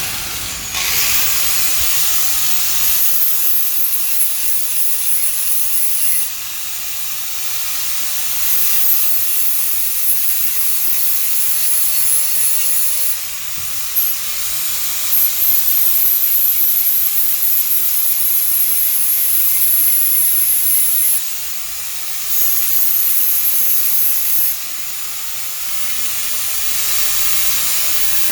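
Angle grinder with a flap disc sharpening the steel blade of a rotary mower. It spins up just after the start, then grinds with a loud, steady hiss and a high whine. The level dips and comes back several times as the disc is lifted off and pressed on again.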